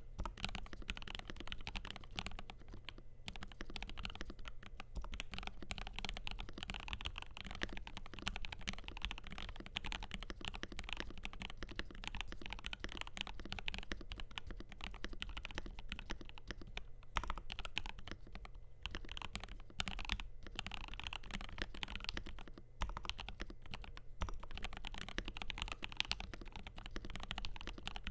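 Continuous fast typing on a FiiO KB3 mechanical keyboard with lubed, filmed Gateron G Pro 3.0 Yellow linear switches under JKDK keycaps on a stainless steel plate, a dense stream of muted key clacks with brief pauses.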